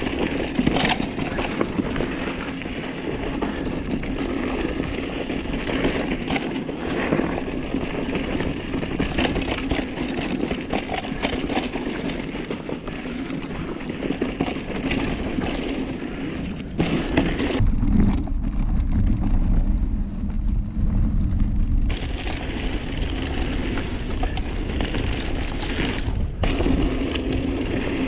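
Mountain bike rolling fast down a rough dirt singletrack: steady tyre noise on dirt with frequent rattles and knocks from the bike over the bumps. For a few seconds past the middle the sound turns to a muffled, deep rumble.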